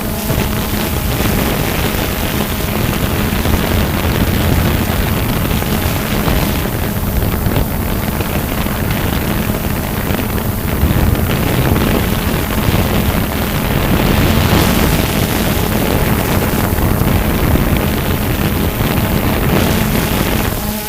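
DJI Phantom 2 quadcopter's propellers and motors running steadily with a constant hum, mixed with wind rushing over the microphone.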